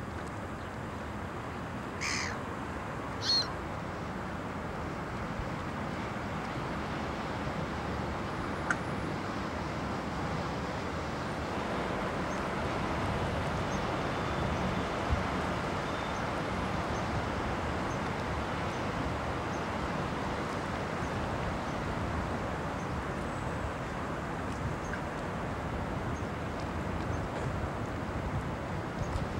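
Steady river ambience with the rumble and wash of a glass-roofed tour boat passing below, growing a little louder from about halfway through. Two short bird calls ring out early, about a second apart.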